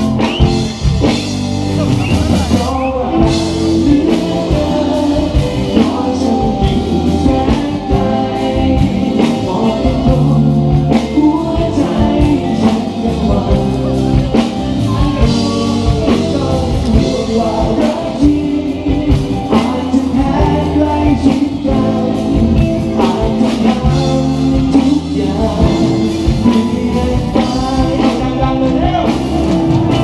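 Live band playing a song with singing: electric guitars, bass and a drum kit keeping a steady beat.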